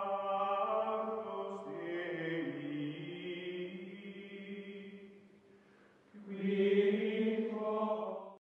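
Outro music of wordless choir voices singing long held chords. It fades away about five seconds in, then a second held chord sounds and stops abruptly near the end.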